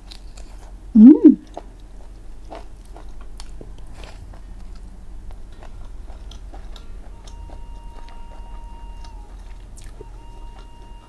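Close-miked chewing of spicy stir-fried chicken gizzard, with soft wet mouth clicks throughout. There is a short loud 'mm' of the voice about a second in. Faint background music holding a steady note comes in about seven seconds in.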